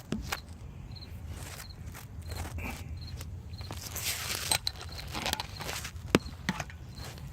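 Clicking from the drivetrain of a 2004 Mercury Mountaineer AWD while reversing and turning, a light tick repeating about every two-thirds of a second among louder irregular clicks, over a low engine rumble. The owner puts the clicking down to the differential.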